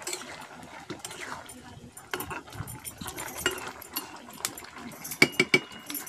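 A metal ladle scraping and clinking against a steel kadai as a simmering vegetable curry is stirred, with a quick run of louder clinks about five seconds in that ring briefly.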